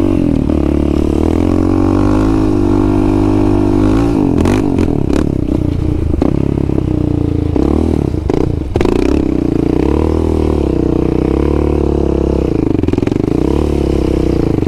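Yamaha Raptor 700 ATV's single-cylinder four-stroke engine running under a light throttle, its pitch rising and falling as the throttle is worked. A few clattering knocks come in around the middle.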